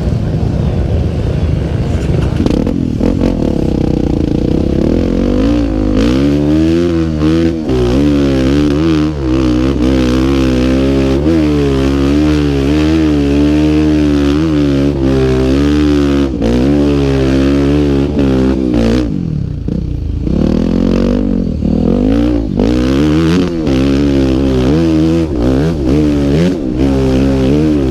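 Single-cylinder four-stroke engine of a Honda Tornado trail bike bored out to 319 cc, ridden hard, its pitch rising and falling again and again as the throttle opens and closes. The note drops away briefly about two-thirds of the way through, then picks up again.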